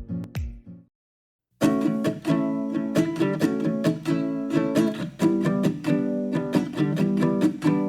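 Background music of plucked acoustic guitar or ukulele; it cuts to silence for about half a second near the start, then resumes with a steady strummed rhythm.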